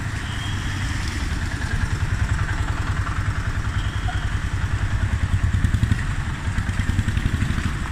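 Street noise in heavy rain: a steady rushing hiss with a strong, uneven low rumble from road traffic passing close by.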